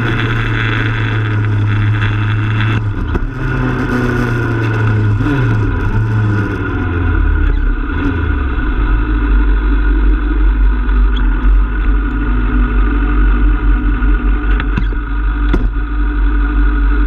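Kawasaki Z1000's inline-four engine running under way with wind rush, then its note falls as the bike slows, and from about halfway it settles into a steady low idle while stopped.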